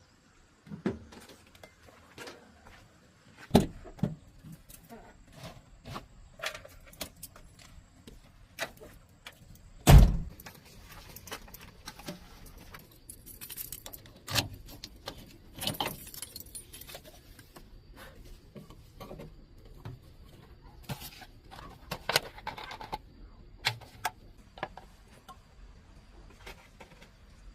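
Irregular metallic clinks, taps and knocks of hand tools and parts being handled during repair work on an old single-cylinder diesel tractor, with one heavy thud about ten seconds in.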